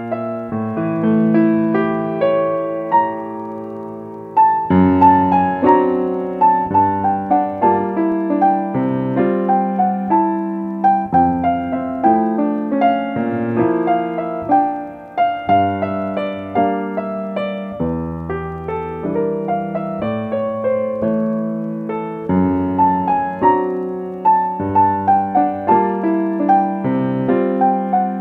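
Piano music: a steady run of single notes over sustained lower notes, with a short lull about four seconds in before it picks up again.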